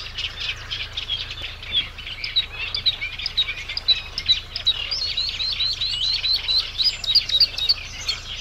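A chorus of small birds chirping rapidly, with many short high notes overlapping and thickest in the middle.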